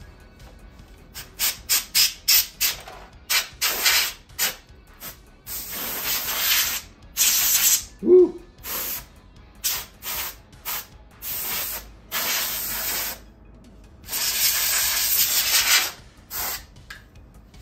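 Can of compressed-air duster spraying in short puffs and longer blasts, hissing as dust is blown out of a CRT television's chassis. Several quick puffs come first, then longer sprays, the longest about a second and a half long near the end.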